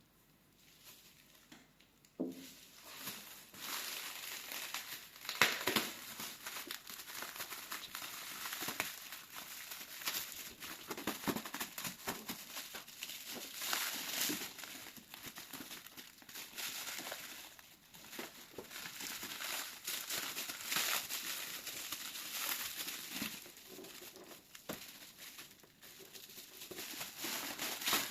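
Continuous crinkling and rustling with small irregular clicks and crackles, starting about two seconds in.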